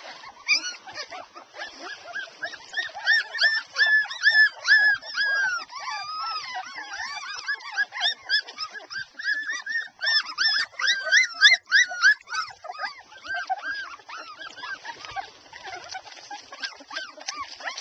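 A litter of two-and-a-half-week-old Airedale puppies crying while they nurse: many short, high-pitched squeaks and whimpers overlapping in a dense chorus. The cries are loudest through the middle and thin out toward the end.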